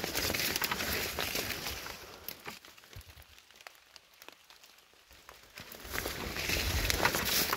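Footsteps and rustling through leaf litter and low forest plants. The rustling dies down for a few seconds in the middle and picks up again near the end.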